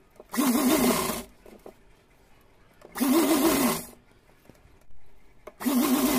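Sewing machine stitching gold lace trim onto the edge of a silk fabric panel, in three short runs of about a second each with pauses between them as the fabric is repositioned.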